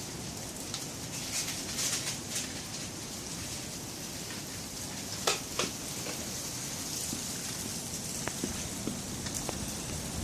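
Wind blowing steadily, a hissing rush, with two sharp clicks about halfway through and a few fainter ticks later.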